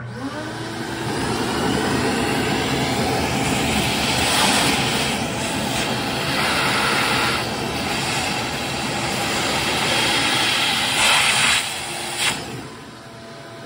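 A vacuum cleaner switches on, its motor spinning up to a steady whine, and sucks up metal drilling shavings from around a freshly drilled hole in an engine crankcase. There are several surges of louder hiss as the nozzle takes in the chips, and the sound drops quieter near the end.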